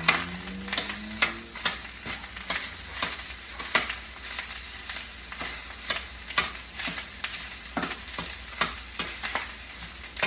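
Day-old rice and rib meat sizzling in a frying pan while a spatula stirs and scrapes through it, knocking against the pan several times a second.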